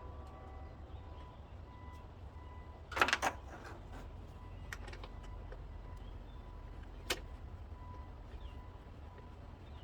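Metal hand tools clinking in the engine bay while the throttle body is unbolted: a short cluster of clanks about three seconds in and a single click about seven seconds in, over a steady low hum.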